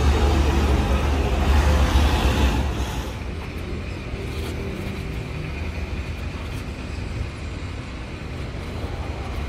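Low background rumble under a steady noise haze, loud for the first few seconds and then dropping to a quieter, even level about three seconds in.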